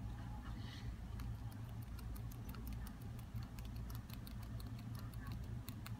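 Pet rat gnawing the stalk of a raw broccoli floret: rapid, crisp little clicks of its teeth crunching through the stem, thickening from about a second in. A steady low hum runs underneath.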